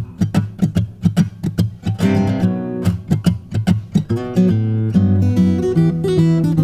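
Background music: acoustic guitar, quick plucked notes and strummed chords.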